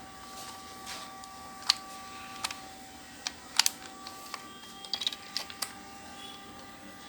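Scattered sharp plastic clicks and taps from handling a toy RC car's 2.4 GHz remote control and pressing its power button, with a quick cluster of clicks about five seconds in.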